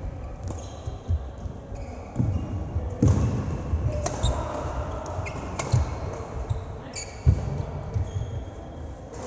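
Irregular thuds of a ball being played during a match, with short high squeaks in between.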